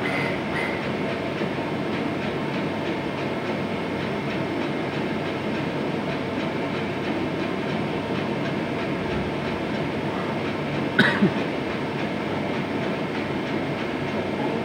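Steady traffic noise as a light box truck drives past, followed by a car. Two brief sharp sounds come close together about eleven seconds in.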